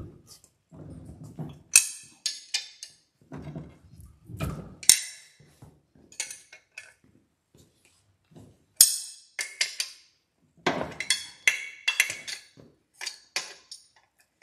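Hand tools and loose bolts clinking and knocking at irregular moments as the bolts are backed out and the lower unit is dropped off the outboard, with single sharp clinks about two, five and nine seconds in and a quick run of clinks near the end.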